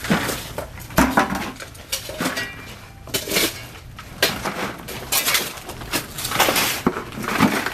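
A steel shovel scraping and scooping into broken rubble and dirt, with irregular clinks, crunches and scrapes roughly once a second.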